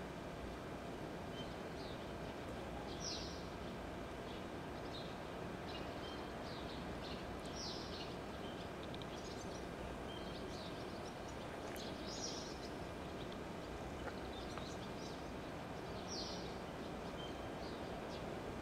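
Songbirds calling, one repeating a short high phrase about every four to five seconds, with scattered small chirps, over a steady background of outdoor noise.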